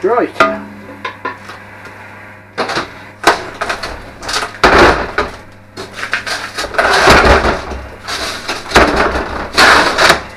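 Steel pieces being handled on a workbench: a short ringing clang at the start, then irregular knocks, clanks and scraping of metal against metal.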